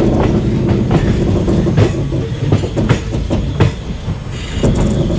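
Express train coach wheels clattering over the points as the train crosses onto another track, with sharp knocks at uneven intervals over the steady rumble of the running train, heard at an open coach door.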